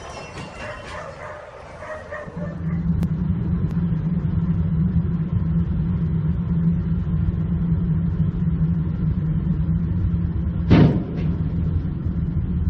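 Steady drone of a car's engine and tyres at motorway speed, heard from inside the cabin. About eleven seconds in comes one sharp bang as a dump truck's raised tipper body strikes a motorway overpass.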